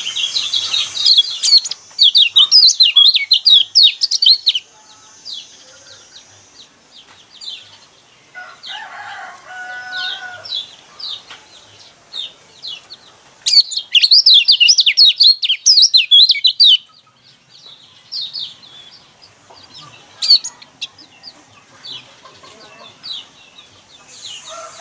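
Yellow kecial white-eye (pleci) singing its fast, scratchy, high-pitched gronsengan song in two loud rapid bursts, near the start and again past the middle, with scattered chirps between. A lower-pitched call comes in about eight seconds in and lasts a few seconds.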